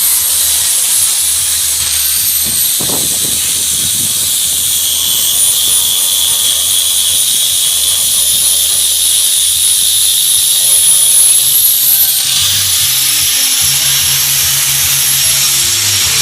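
A power tool running steadily: a loud, high hiss with a whine that drifts in pitch and shifts about twelve seconds in.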